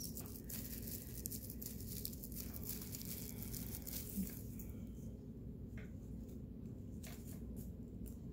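Plastic-bag yarn (plarn) crinkling and rustling in the hands as chain stitches are worked with a crochet hook. The faint crackles come thick in the first couple of seconds and then only here and there, over a steady low hum.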